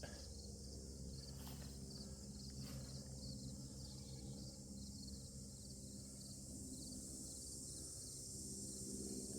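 Insects chirping in a steady, high-pitched chorus with a fast, even pulse, with a couple of faint clicks in the first few seconds.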